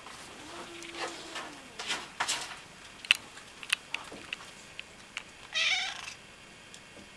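Tabby cat giving one low, drawn-out meow about a second in, among sharp clicks and rustling. A short, louder harsh sound comes near the end.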